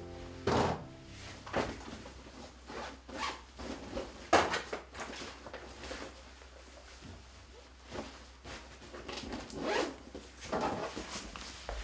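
A fabric bag being handled and zipped, with irregular rustles and zip strokes of cloth and clothing.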